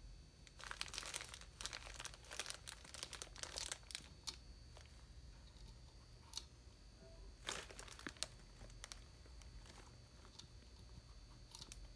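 Dry hay rustling and crinkling in irregular runs of crackles: a long run over the first few seconds, another about seven to nine seconds in, and a short one near the end.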